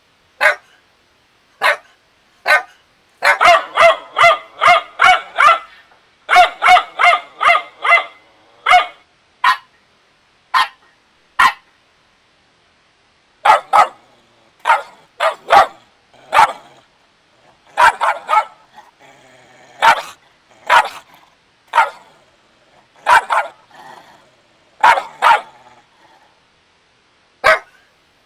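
A puppy barking: short high yaps, mostly single with pauses between, and two fast runs of rapid barks a few seconds in.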